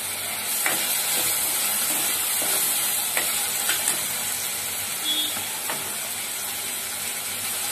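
Potato cubes and onion-tomato masala sizzling in oil in a non-stick kadhai while a steel spatula stirs them, with a few sharp clicks and scrapes of the spatula against the pan.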